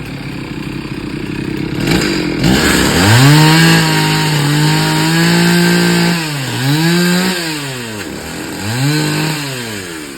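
Two-stroke chainsaw idling, then revved up about two and a half seconds in and held at high speed for about three seconds. It is then revved twice more in shorter bursts and drops back toward idle near the end.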